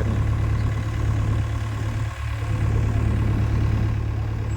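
Diesel engine of a SANY SY75C PRO mini excavator running steadily at a low, even speed, with a constant low hum; the level dips for a moment about two seconds in.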